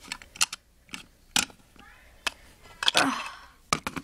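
Irregular clicks and taps of small plastic toys being picked up and set down on a plastic playset, about a dozen in all, with a brief voice sound near the end.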